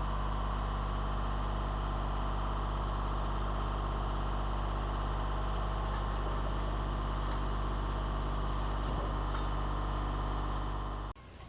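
Engine idling steadily with a deep, even hum. It cuts off abruptly near the end.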